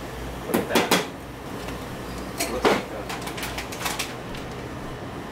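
Kitchen items being handled and set down on a counter: a quick run of hard knocks and clatters about half a second in, another sharp knock just under three seconds in, then a few lighter taps.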